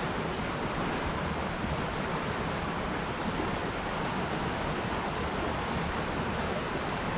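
River water rushing steadily over rocks: a constant, even rush of flowing water.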